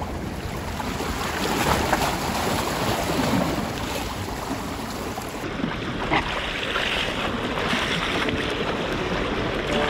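Sea waves washing and splashing against the concrete tetrapods of a breakwater, with wind rumbling on the microphone. The sound turns duller about halfway through.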